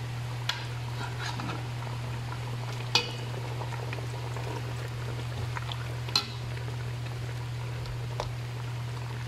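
A serving utensil knocking against a stainless-steel cooking pot while chicken is lifted out of the broth: three sharp clicks a few seconds apart and some lighter taps, over a steady low hum.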